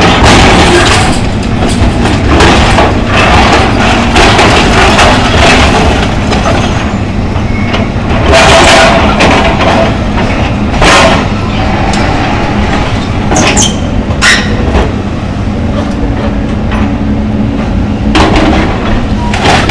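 A John Deere excavator demolishing a building: a loud, continuous engine-and-machinery rumble broken by repeated crashes of falling debris.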